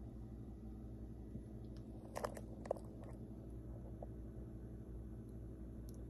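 Low, steady room hum with a few small sharp clicks a little over two seconds in.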